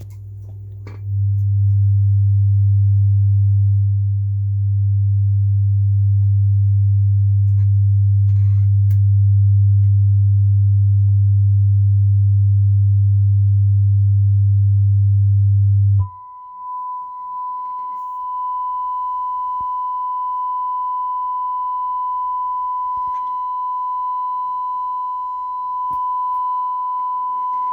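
Sine-wave test tones played through an Electro-Voice unit under repair. A steady low tone gets louder about a second in, then cuts over suddenly to a steady, much higher tone about sixteen seconds in.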